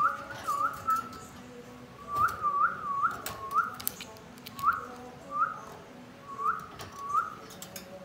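Parakeet whistling: about a dozen short, clear notes that each swoop upward, coming in runs of two to four with short pauses between runs, and a few light clicks among them.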